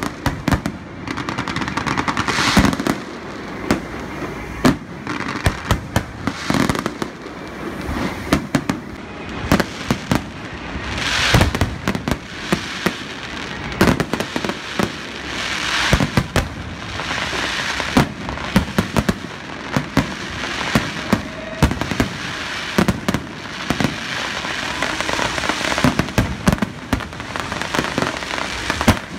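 Aerial fireworks shells bursting in a dense, continuous barrage: sharp bangs several times a second over a constant crackle, with louder swells of crackling now and then.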